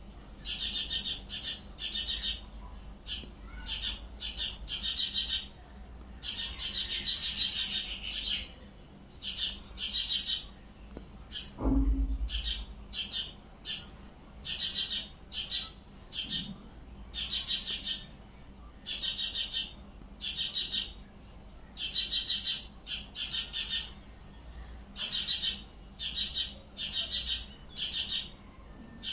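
Bird chirping in quick high-pitched bursts of rapid notes, each a fraction of a second to about a second long, repeating every second or so. A single low thump comes about twelve seconds in.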